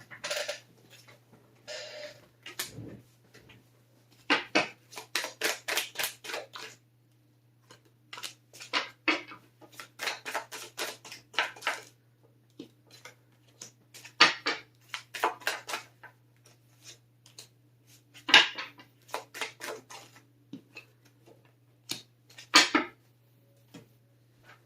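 Tarot cards being handled and shuffled on a table: several bursts of quick snapping clicks, with short pauses between them.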